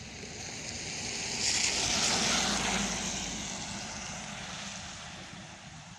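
A car passing by on a wet road, its tyres hissing on the water. The sound swells to a peak about two seconds in and then fades away.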